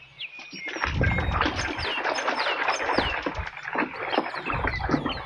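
Splashing and rubbing as a mud-caked plastic toy gun is washed by hand in water, a dense run of small clicks and swishes. Birds chirp repeatedly in the background with short falling calls.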